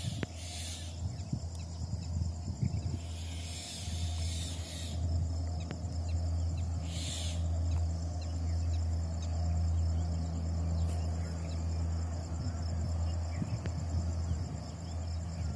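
Outdoor trackside ambience: a steady low hum with a faint, steady high-pitched drone and faint bird calls. Short bursts of hiss come about half a second in, from about three to five seconds in, and again around seven seconds in.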